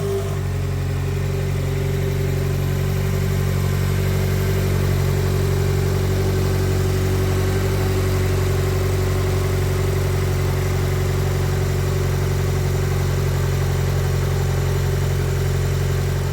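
Nissan SR20 inline-four engine idling steadily just after starting, its speed holding even.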